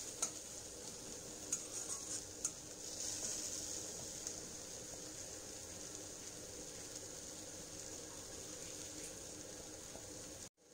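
Onion and tomato masala sizzling gently in a kadai, with a few light clicks of a steel spatula against the pan in the first couple of seconds, then an even, faint sizzle.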